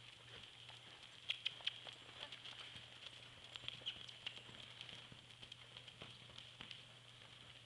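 Faint hoofbeats of a Missouri Fox Trotter mare moving under saddle on sand arena footing, with a few sharper hoof strikes about a second and a half in.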